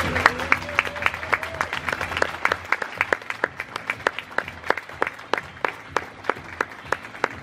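A small audience applauding, the separate hand claps easy to pick out, as the last of the square dance music dies away in the first second.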